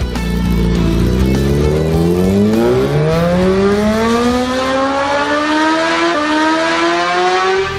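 Sport bike engine accelerating hard in one long, steadily rising pull, its pitch climbing throughout before the sound cuts off suddenly near the end.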